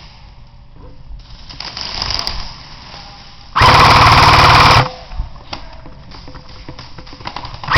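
Airsoft gun firing a full-auto burst of a little over a second, very loud and close, with a fainter rattle of rapid fire a couple of seconds before it; another loud burst begins right at the end.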